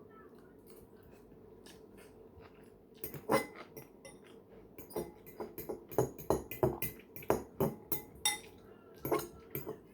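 Close-up noodle-eating sounds: a run of short, irregular clicks and smacks from chewing and from utensils against the bowl, starting about three seconds in and coming several a second.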